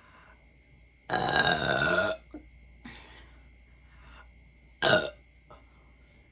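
A woman belching loudly: one long, drawn-out burp lasting about a second, starting about a second in, then a short, sharp burp near the end.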